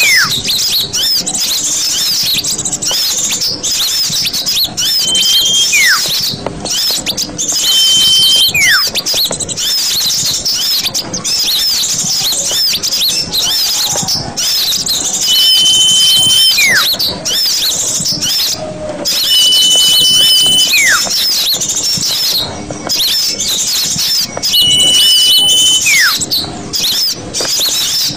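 Recorded small-bird calls used as a bird lure: a dense chorus of high twittering chirps that never lets up, with a clear whistle held for about a second and then a short falling whistle, the pair repeating about six times.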